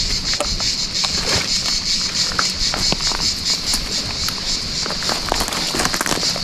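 Cicadas singing in a steady, high-pitched chorus, with scattered crackles of branches and loose stones as a climber works his way down through scrub on a rope.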